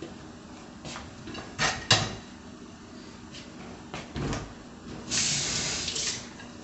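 A few light knocks and clunks of kitchen handling, the sharpest about two seconds in, then about a second of steady hiss near the end.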